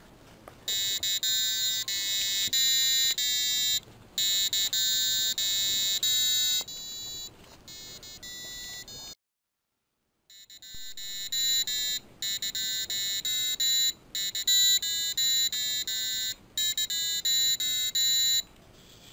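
Piezo buzzer on an Arduino-style board playing a simple tune as a string of shrill electronic beeps, one pitch per note. After a brief cut it plays the tune again at a faster tempo, with shorter, quicker notes.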